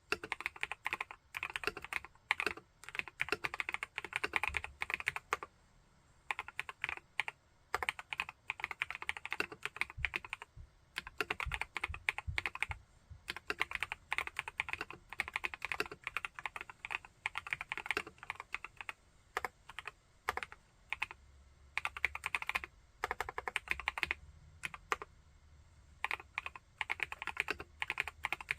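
Typing on an Epomaker Brick 87 mechanical keyboard with Epomaker Wisteria linear switches: fast runs of keystrokes broken by short pauses.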